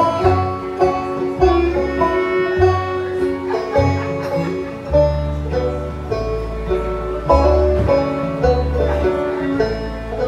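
Bluegrass band playing an instrumental passage, led by a resonator banjo picking quick runs of notes, with acoustic guitar and bass underneath.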